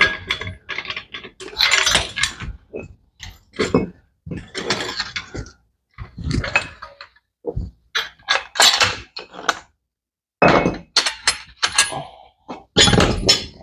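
Tools and metal parts clicking, clanking and scraping in short, irregular bursts as the gearbox of a Brastemp BWK 14 washing machine is taken apart.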